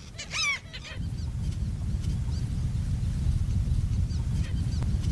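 Black skimmers calling: a quick run of short, repeated honking calls in the first half-second, then only a few faint calls over a steady low rumble that sets in about a second in.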